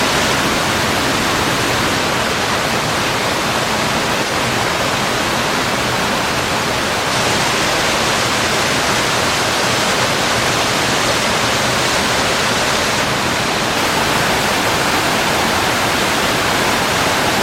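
Waterfall in heavy flow: a loud, steady rush of falling water that never lets up.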